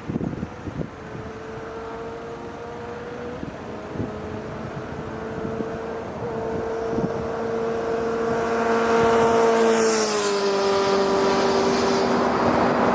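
A vehicle's engine hum growing steadily louder as it approaches, its pitch dropping about ten seconds in as it passes, with a rising rush of noise afterwards. A few knocks sound in the first second.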